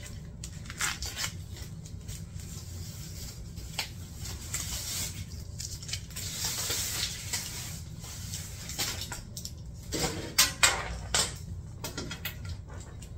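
Foam and plastic wrapping rustling and crinkling as it is pulled off a leather handbag strap, then a few sharp clinks of the strap's metal clasp hardware about ten seconds in.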